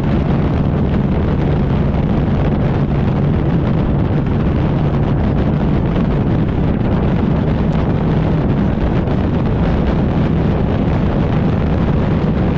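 Wind rushing over the microphone of a moving Gatoma 200 motorbike, with the bike's engine running steadily underneath at cruising speed.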